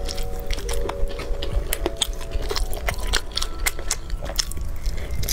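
Close-miked biting and chewing of a cola-glazed chicken wing: a quick, irregular run of sharp clicks and wet smacks.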